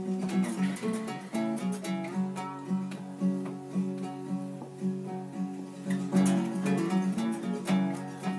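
Two acoustic guitars played together in a folk song, picked and strummed notes over a steady pulse.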